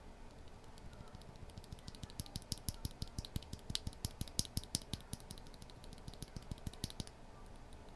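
Akko Rosewood linear mechanical keyboard switches being pressed, giving a quick, irregular run of light clacks that is busiest in the middle.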